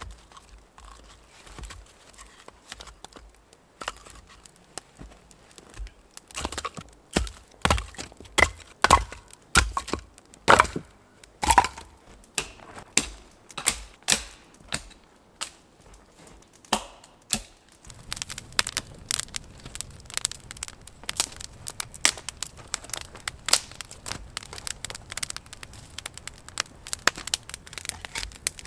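Dry dead branches snapped by hand, a string of loud, sharp cracks about one a second. Later, a wood fire crackling steadily with a low rumble beneath.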